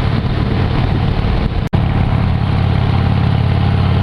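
Harley-Davidson V-twin motorcycle engine running steadily through its unmodified exhaust, a sound the owner finds weak for a Harley. The sound breaks off for an instant a little before halfway, then carries on steady.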